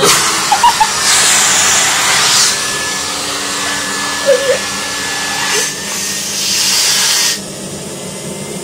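Vacuum cleaner running with a steady rush and a thin whine, its sound swelling and easing as the airflow through the nozzle changes, then dropping sharply near the end.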